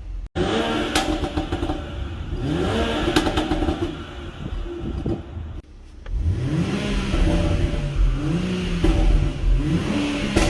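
2020 BMW X6 40i's turbocharged inline-six, with a Stage 1 tune and downpipe, revved again and again, with sharp exhaust pops and crackles among the rev blips. The sound breaks off suddenly just after the start and again about halfway through, then the revving resumes.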